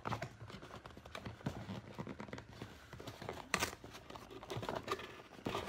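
Small cardboard box being handled and opened by hand: scattered rustling and scraping of cardboard and paper, with one louder rasp about three and a half seconds in.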